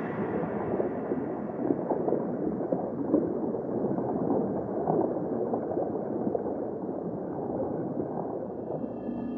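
Muffled water gurgling and bubbling, a dense flickering texture with little treble.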